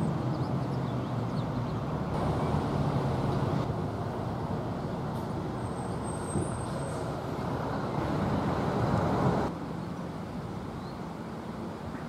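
Steady road traffic noise, a rumble of passing vehicles that steps down abruptly near the end.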